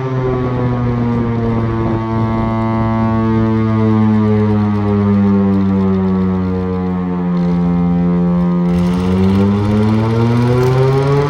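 Chrysler air raid siren, driven by its Chrysler Hemi engine, sounding loudly. Its pitch slides slowly down, then climbs again from about nine seconds in.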